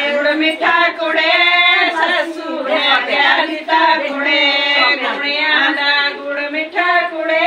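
Several women singing together without instruments, a folk-style song in held, overlapping voice lines.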